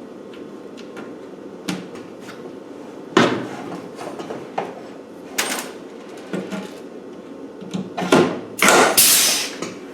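Knocks and clatter of sheet-metal body panels being handled and fitted, with several sharp knocks and a short harsh scraping burst near the end.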